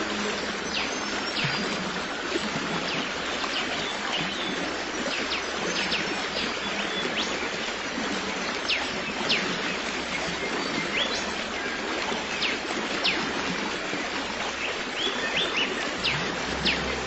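Running stream with a steady rush of water, and many short bird chirps scattered over it.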